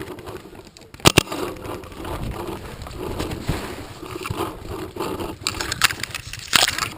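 Paintball markers firing: a sharp double pop about a second in and another near the end, with smaller clicks and the rustle of gear and movement between them.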